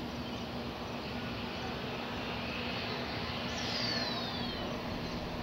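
Airbus A330-300's GE CF6-80E1 turbofans on final approach at landing power, a steady jet noise with a faint low hum under it. A short falling whistle comes about three and a half seconds in.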